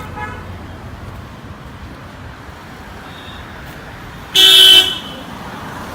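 Street traffic running steadily, with a short honk right at the start and one loud, half-second blast of a vehicle horn about four and a half seconds in.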